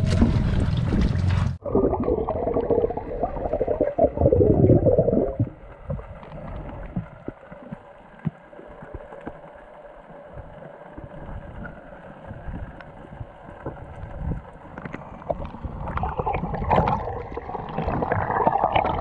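Camera microphone plunging underwater about a second and a half in. Loud bubbling and gurgling follows for a few seconds, then a muffled underwater drone with faint clicks, which swells with more bubbling near the end.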